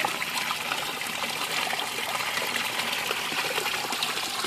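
Koi pond fountain running, its water splashing and trickling steadily onto the pond surface.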